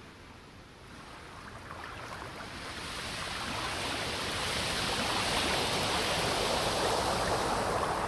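Rushing water noise, like surf coming in, that swells gradually over the first five seconds, holds, then begins to fade near the end.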